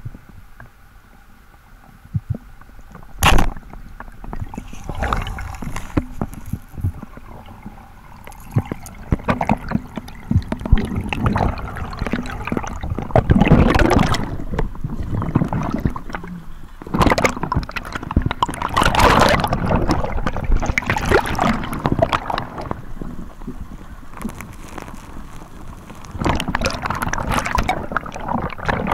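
Sea water sloshing, splashing and gurgling around a freediver, with rushes of bubbles as the fins kick, and louder surges of splashing at the surface. A single sharp crack stands out about three seconds in.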